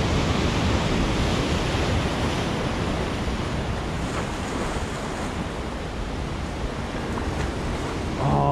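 Heavy surf washing over shore rocks, with wind buffeting the microphone; the wash is loudest at the start and slowly eases off.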